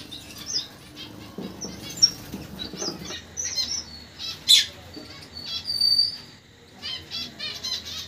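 Small cage birds in an aviary, finches and parakeets, chirping with many short high calls while wings flap. There is a sharp click about four and a half seconds in, and a single held high whistle shortly after.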